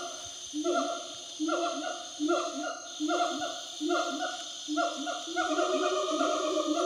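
Gibbons calling in the forest canopy: a steady run of loud hooting notes, each sliding down in pitch, repeating about every two-thirds of a second and sometimes overlapping in pairs. A steady high drone runs underneath.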